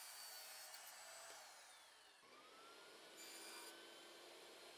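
Very faint sound of a SawStop jobsite table saw cutting thin strips from plywood, turned down almost to near silence, with a faint falling whine about a second and a half in.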